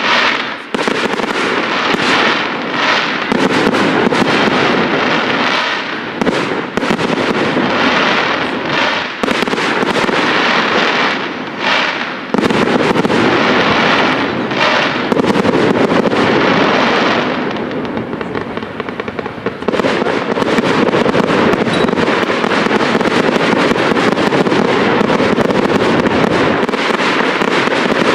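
Fireworks display: a loud, dense, almost unbroken run of shell bursts and crackling, easing for a moment about two-thirds of the way through before picking up again.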